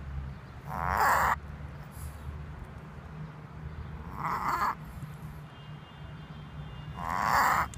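Tibetan Spaniel reverse sneezing: three loud, harsh gasping pulls of air, each under a second long and about three seconds apart. It is a reverse-sneezing episode, which the uploader also calls an asthma attack.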